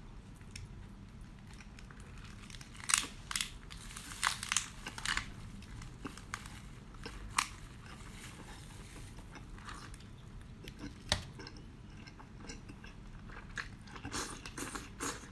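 Close-up eating sounds of a person biting and chewing seafood, with crisp crunches and clicks coming in clusters a few seconds apart.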